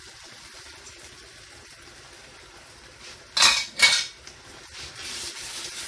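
Two short, loud clatters of kitchenware about three and a half seconds in, half a second apart, over the faint simmer of a tomato and minced-meat sauce in a frying pan.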